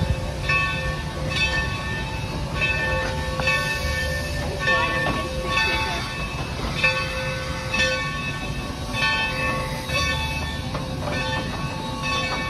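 Steam locomotive's bell ringing in steady, evenly spaced strokes over the low rumble of the locomotive. The bell is rung as the locomotive backs slowly down onto a coach to couple.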